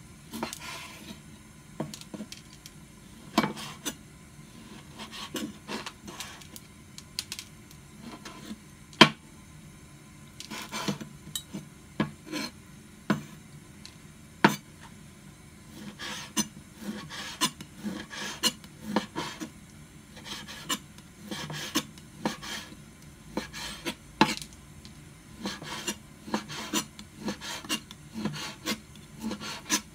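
Chef's knife slicing raw pork into thin strips on a cutting board: irregular knocks of the blade striking the board, with scraping strokes in between. The sharpest knock comes about nine seconds in.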